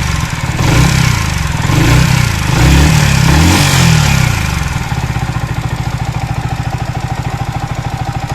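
Yamaha R15 V3 single-cylinder motorcycle engine running, blipped several times in the first five seconds and then settling to a steady idle. The engine has an unusual noise under diagnosis.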